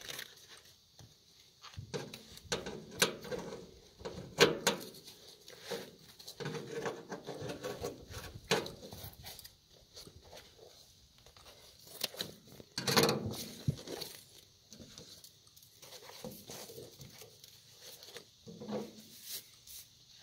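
Rustling, crinkling and clicks as duct tape and padding are cut and pulled off a calf's leg splint. The sounds come in irregular bursts, with a louder patch about 13 seconds in.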